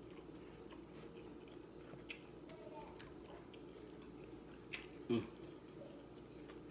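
A person chewing fried chicken with faint, wet, scattered clicks of eating. There is a brief louder sound about five seconds in.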